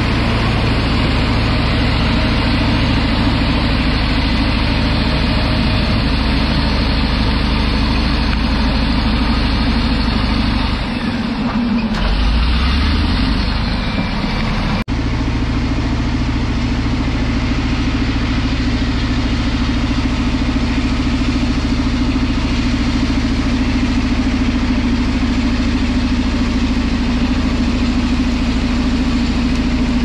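Caterpillar D11N bulldozer's V8 diesel engine running under load as the dozer pushes a bladeful of rock and dirt uphill: a steady heavy engine drone. About halfway through the drone dips, rises briefly, then changes abruptly.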